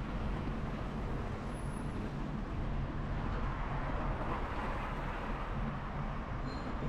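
Steady road-vehicle noise: a low running hum under an even rush of road noise, swelling a little about four seconds in.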